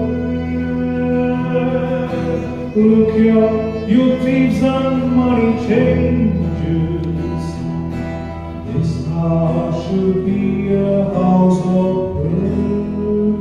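Church choir singing a hymn with instrumental accompaniment.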